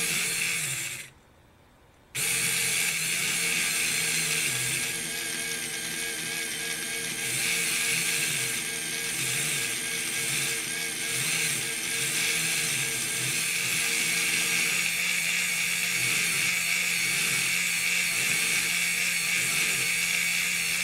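Small DC gear motors driving the robot's tank tracks with a steady whine. They cut out for about a second near the start, then run again with their pitch wavering as they slow and speed up in response to the infrared obstacle sensors detecting a hand in front.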